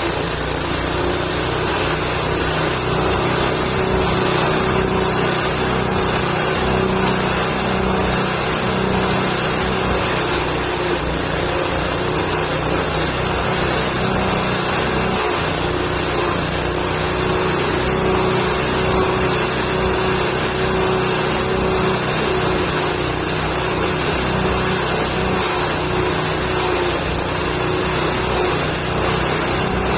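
Engine-driven forage chopper running steadily while shredding indigofera and gamal branches into fine goat feed, with a steady hum under the grinding noise.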